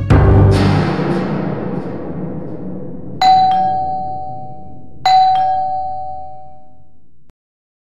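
A loud musical hit that fades out over a few seconds, then a two-note ding-dong doorbell chime rung twice, about two seconds apart. The sound cuts off suddenly near the end.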